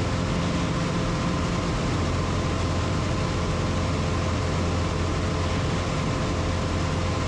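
Super Decathlon's four-cylinder Lycoming engine and propeller droning steadily in level cruise, heard inside the cockpit. A faint steady high whine runs along with it.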